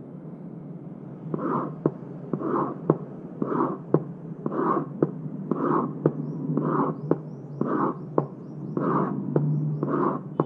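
Heart sounds with the pansystolic murmur of mitral regurgitation, beating about once a second from about a second in. Each beat is a blowing murmur that starts with and hides S1, fills systole, and ends at a sharp S2 click.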